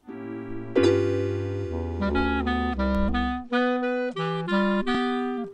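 Clarinet music: a tune of held notes over low sustained bass notes that drop out about three and a half seconds in. It grows louder about a second in.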